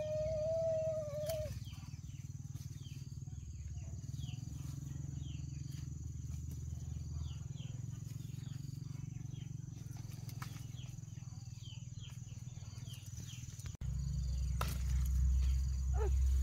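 Outdoor ambience: a steady low rumble with a run of short, falling chirps about twice a second, opening with a brief held call. The rumble gets louder about two seconds before the end.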